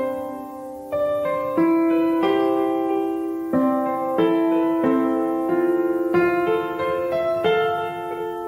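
Background piano music: sustained chords and notes struck at an even, unhurried pace.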